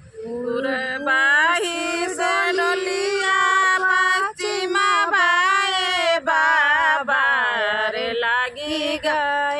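Two women singing a Hindi-belt folk wedding song (vivah geet) together without instruments, opening with long drawn-out held notes that waver in pitch.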